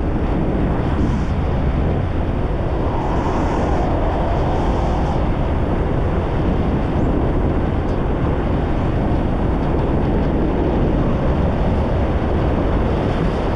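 Steady rush of wind and road noise while riding a motor scooter, heaviest in the low end.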